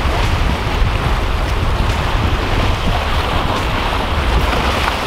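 Wind buffeting the microphone over ocean surf washing against the jetty's rocks: a steady rushing noise, heaviest in the low rumble.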